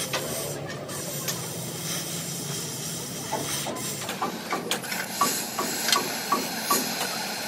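Oxy-fuel cutting torch hissing steadily as it burns through the steel of a truck chassis frame. From about halfway, a run of short sharp ticks, about two or three a second, sounds over the hiss.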